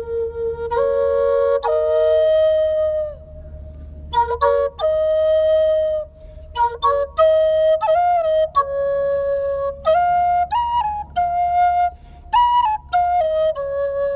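Solo flute playing a slow melody: a long held note, then a brief lull about three seconds in, then a run of shorter notes with small slides between some of them.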